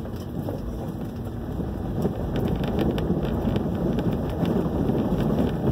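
Inside a 4x4 truck's cab on a bumpy dirt trail: a steady low rumble of engine and tyres, with frequent light rattles and knocks from the body as it rides over the ruts. The rumble grows a little louder about two seconds in.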